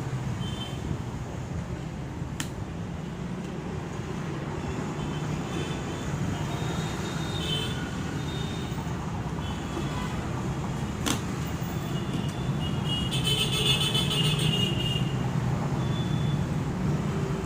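Steady road-traffic rumble with short high horn-like tones, thickest about three-quarters of the way through, and two sharp clicks.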